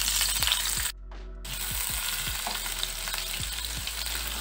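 Chopped onions sizzling as they fry in hot oil in a frying pan, stirred with a wooden spatula. The sizzle drops out briefly about a second in, then carries on steadily.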